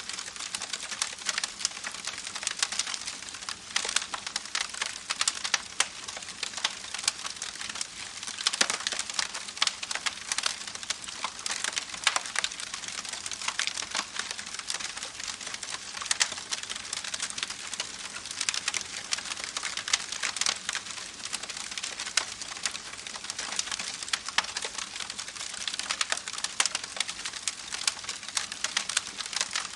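Campfire crackling, with frequent sharp pops and snaps over a steady rushing hiss from a babbling creek.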